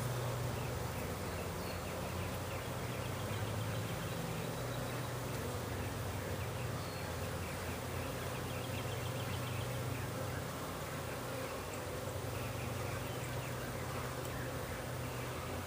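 A mass of Italian honey bees buzzing around an opened bee package and hive, a steady low hum.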